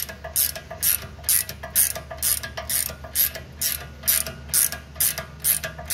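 Socket ratchet clicking in quick, even back-and-forth strokes, about two a second, as it backs off the nut on the upper ball joint stud.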